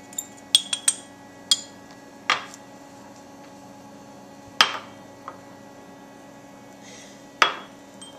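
Small ceramic ramekins clinking and knocking against each other as spices are tipped and tapped out of them into one bowl. Several sharp clinks come close together in the first second and a half, then single ringing ones a couple of seconds apart.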